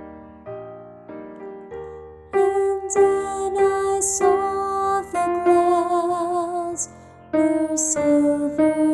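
Piano accompaniment playing repeated chords, then about two seconds in a soprano voice enters, singing long held notes with vibrato over the piano.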